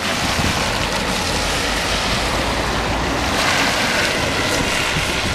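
Wind rumbling on the microphone, with a van passing close by on the wet road, its tyres hissing through the water, swelling from about three seconds in.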